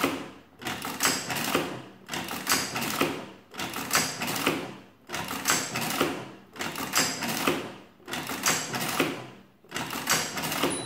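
The hand-pulled operating handle of a Burroughs Class 1 adding machine, pulled and let return about seven times, one stroke every second and a half or so. Each stroke is a clatter of the machine's levers and gears. Each pull enters the divisor once more, in division by repeated entry.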